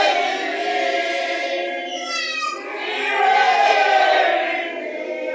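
Church congregation singing together without instruments, in two long swelling phrases with a brief dip between them about two and a half seconds in.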